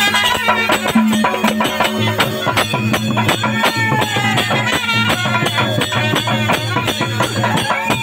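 Live folk dance band music: hand drums beating a quick, even rhythm under a melody from a trumpet, with a harmonium holding low notes.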